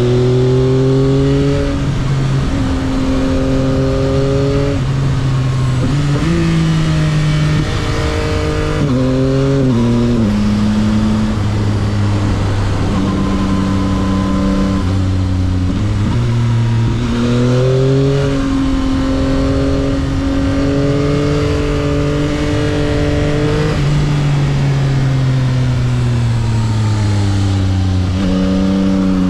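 Stock exhaust of a 2022 Yamaha XSR900's 890 cc inline three-cylinder engine riding along, heard from the rider's helmet. Its pitch rises and falls with the throttle: it drops in quick steps about nine to ten seconds in, holds steady through the middle, sinks slowly, then climbs again near the end.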